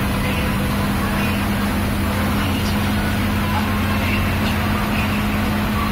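Coach bus cruising on the highway, heard from inside the cabin at the front: a steady low engine hum over constant road and tyre noise.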